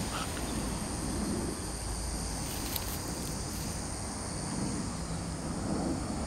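Steady high-pitched insect chorus over a low, steady rumble, with a couple of faint clicks about halfway through.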